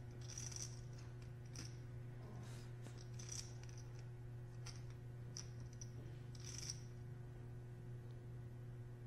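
Poker chips clicking as they are handled at the table: a scattering of short, irregular clacks, faint, over a steady low hum.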